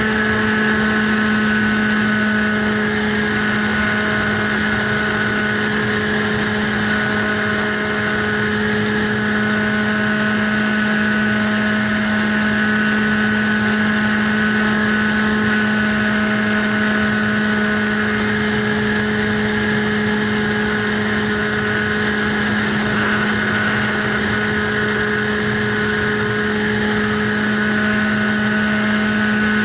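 Radio-control plane's motor and propeller running steadily in flight, a constant hum with a higher whine above it over rushing air, heard from the onboard camera.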